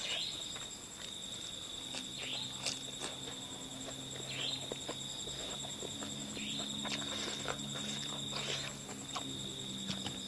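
A person eating with the mouth close to the microphone: irregular wet clicks and smacks of chewing. Under it runs a steady high-pitched tone.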